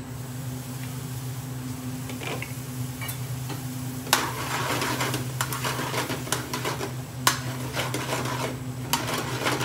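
A metal ladle stirs thick curry sauce in a stainless steel frying pan. From about four seconds in the sauce sizzles, and the ladle scrapes and clicks against the pan. A steady low hum runs underneath throughout.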